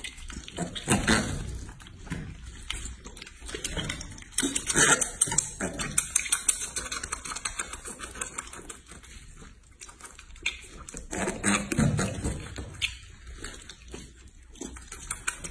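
Piglet suckling hard on a milk bottle's teat, making quick, irregular wet smacking and clicking sounds.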